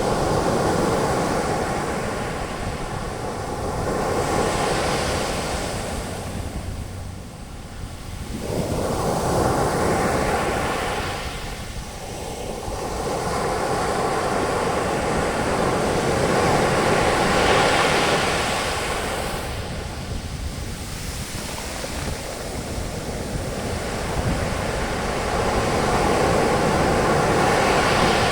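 Ocean waves breaking on a beach and the foam washing up the sand, swelling and easing in slow surges every few seconds, with some wind on the microphone.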